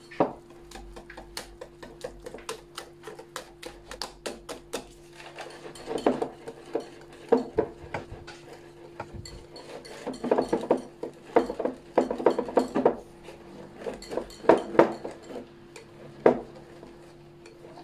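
Metal wire whisk beating thick cake batter in a glass bowl, its wires clicking and tapping against the glass in quick strokes, about four a second at first, then in bursts.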